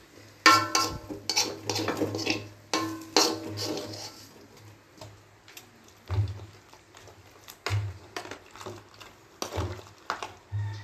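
Metal bowl and aluminium cooking pot clanking and ringing as spice paste is scraped out and stirred into the meat and broth, a quick run of knocks in the first few seconds, then scattered lighter knocks.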